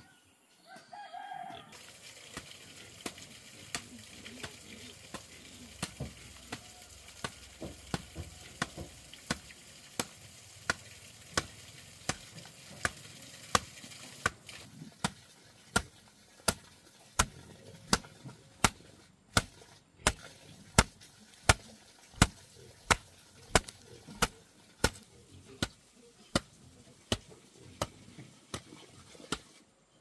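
A rooster crows briefly about a second in. Then comes a long run of sharp, evenly spaced strikes from a hand tool, about three blows every two seconds, louder in the second half.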